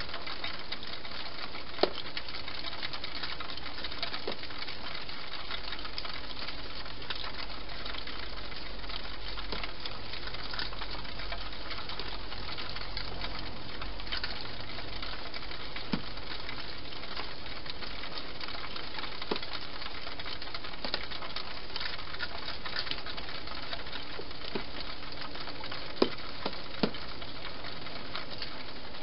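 Wild hedgehog eating from bowls inside a plastic feeding box: a few scattered sharp clicks of feeding, two of them louder near the end, over a steady hiss.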